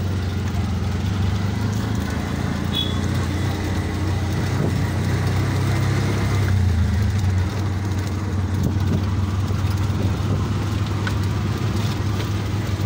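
Auto-rickshaw (tuk-tuk) engine running steadily as it drives along, heard from the open passenger cab: a low hum that swells a little around the middle, with street noise around it.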